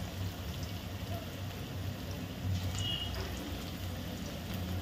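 Chicken pakoras sizzling in hot oil: a steady frying hiss with faint pops, over a low steady hum.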